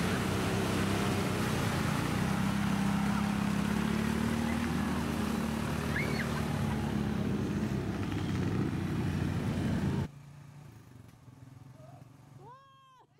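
ATV engine running steadily under load while towing a tub sled of riders through a mud pit by a rope. It cuts off suddenly about ten seconds in, leaving quieter background sound with a few short voice sounds near the end.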